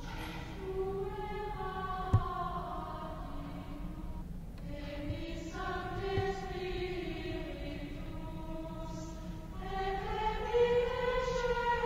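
Choir singing slow sacred choral music in long held phrases, pausing briefly about four seconds in and again near ten seconds. A single sharp click comes a little after two seconds.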